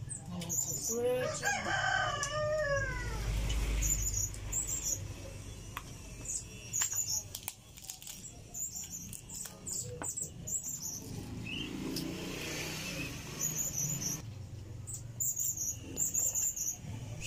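A rooster crows once about half a second in, a long pitched call lasting about two and a half seconds that falls in pitch at the end. Short high chirps come again and again through the rest, with scattered clicks.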